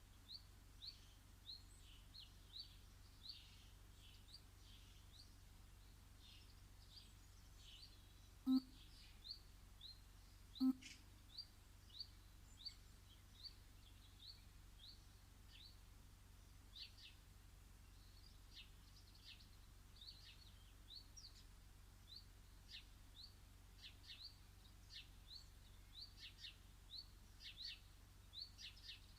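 Garden birds chirping: one bird repeats a short, high, upward-flicking chirp about twice a second, with fainter calls from other birds among them. Two sharp knocks stand out, one about a third of the way in and another about two seconds later.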